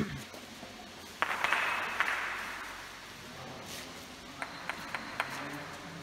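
A gateball mallet strikes a ball with a single sharp clack about a second in, followed by about a second of hiss. Several light clicks come near the end.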